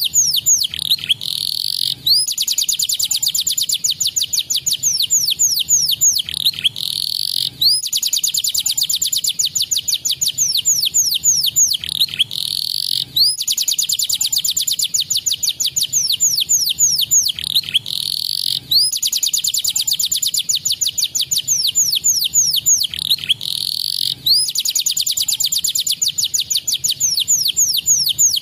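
Canary singing a loud, fast trilling song of rapid, high, downward-sweeping notes. The same run of phrases comes round again about every five and a half seconds. It is a song track meant to stimulate caged canaries to sing.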